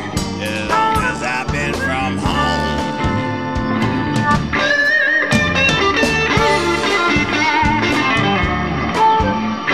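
Electric Chicago blues band playing an instrumental passage: a bending electric guitar lead over bass and a steady drum beat.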